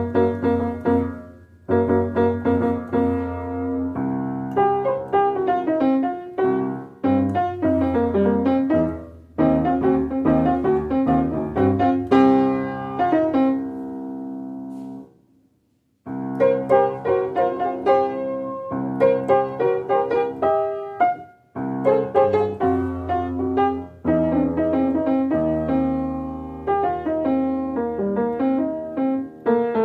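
Piano music played in phrases; it fades out about halfway through, stops for a moment, then starts again.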